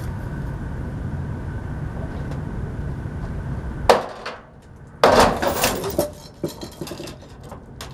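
Steady low hum, then a single sharp metallic strike as the bolt holding a heavy air-compressor head is knocked loose about four seconds in. A second later the compressor head drops the last two feet and crashes down, followed by several smaller metal clanks as it settles.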